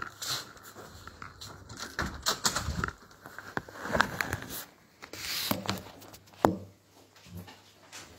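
Handling noise of a phone being moved and set down: scattered clicks, knocks and rustling, the loudest a sharp knock about six and a half seconds in.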